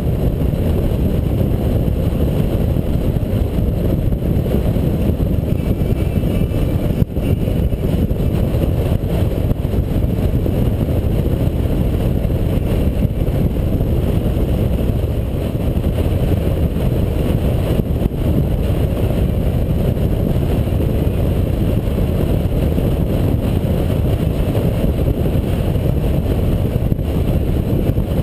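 Touring motorcycle cruising at highway speed: a steady, heavy rush of wind on the microphone over the engine's low drone, with a brief dip about seven seconds in.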